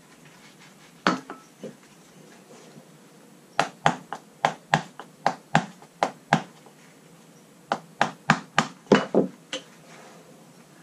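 Sharp clicks and knocks of hard objects being handled and knocked against a hard surface. There is one about a second in, then a quick run of about ten at roughly three a second, and another run near the end.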